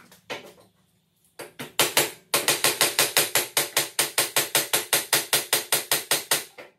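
Hand hammer striking the steel rear wheel hub to drive out the worn wheel bearing: a few blows, then a fast, steady run of about five sharp metal strikes a second.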